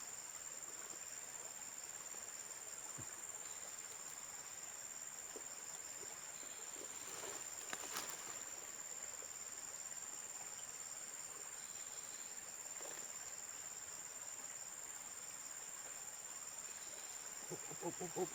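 Steady high-pitched chorus of insects, with a single sharp click about eight seconds in and a few short sounds near the end.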